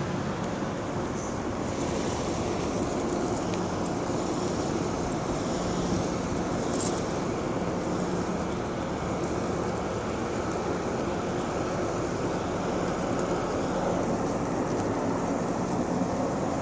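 Steady motor vehicle engine and road noise, with no distinct events.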